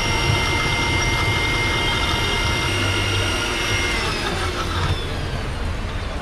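Electric blender motor running with a steady high whine while blending a milkshake. About four seconds in it is switched off, and the whine falls in pitch as the motor winds down.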